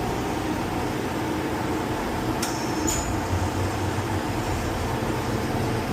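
Oil-fired boiler burner running steadily on No. 2 oil. Two sharp metallic clicks about half a second apart come roughly two and a half seconds in.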